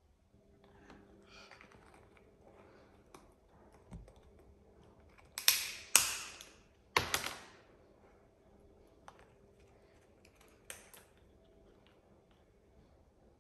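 Blue-and-gold macaw cracking and crushing a walnut shell with its beak: light scratchy clicks and gnawing, a burst of loud sharp cracks midway, and a few more snaps near the end.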